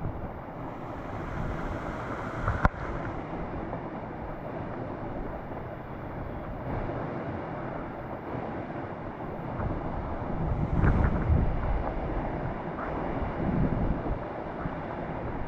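Creek water rushing steadily, with wind buffeting the microphone in stronger gusts about ten seconds in. A single sharp click sounds about two and a half seconds in.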